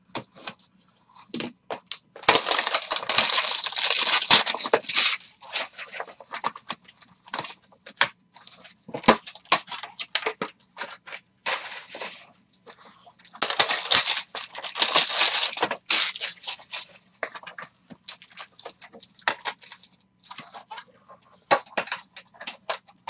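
Trading-card box packaging being torn open and the foil-wrapped packs inside crinkled and ripped: two long tearing bursts, about two seconds in and again about thirteen seconds in, with scattered rustles and taps between.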